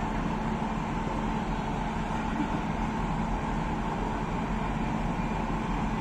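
Steady drone of standing locomotives running at idle, a constant low hum with a held tone through it.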